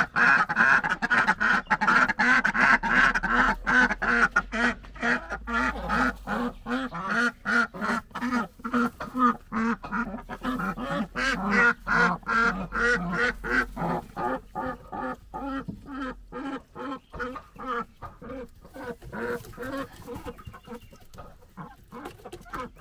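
Several female Indian runner ducks quacking and chattering in quick runs of short calls, several a second, tailing off and getting quieter over the last third.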